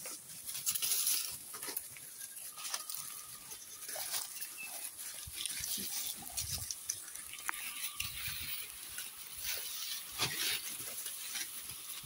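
Goat kids feeding on fresh grass at a rack: scattered rustling and tearing of grass stalks and chewing, with a steady high hiss behind.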